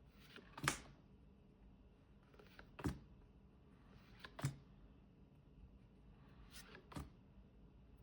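Pokémon trading cards being flicked one at a time off a freshly opened pack's stack: four short, sharp card snaps about two seconds apart, each with a soft slide of card on card just before it.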